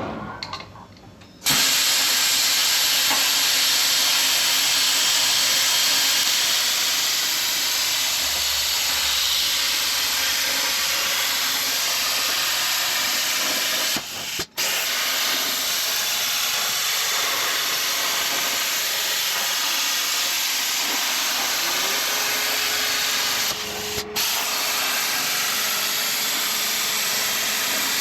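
Plasma cutter cutting steel plate: a steady, loud hiss of the air-driven plasma arc that starts about a second and a half in, briefly breaking off twice.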